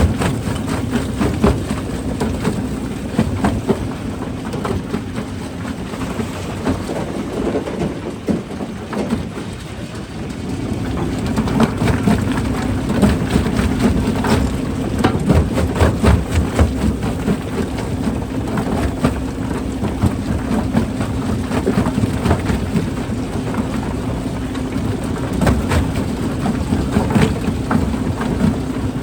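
Rock crusher running with a steady mechanical drone while rocks knock and crack against each other and the steel. It eases off for a few seconds about a third of the way in, then picks up again with more frequent impacts.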